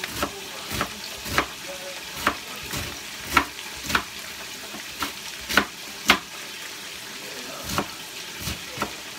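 Knife chopping cabbage on a plastic cutting board: about a dozen sharp chops at an uneven pace. Behind them, a steady sizzle of cabbage frying in bacon grease in a pot.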